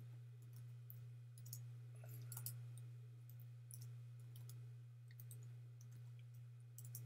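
Faint computer-keyboard keystrokes as a password is typed, a few scattered clicks and short runs of them, over a steady low electrical hum.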